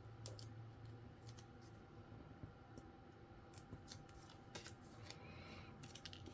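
Near silence with faint, scattered small clicks and a soft rustle, as of paper-craft card pieces being handled on a desk.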